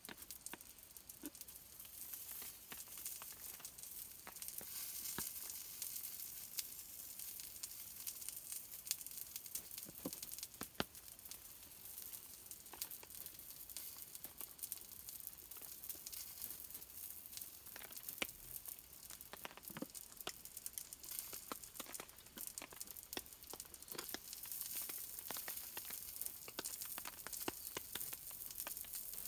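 Food frying on a homemade extra-thick iron griddle over a fire: a steady high sizzle with scattered pops and crackles.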